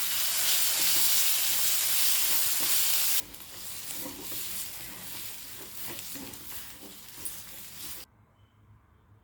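Hot oil sizzling loudly in a frying pan while it is stirred. About three seconds in it drops abruptly to a quieter crackle with spoon taps, and it stops shortly before the end.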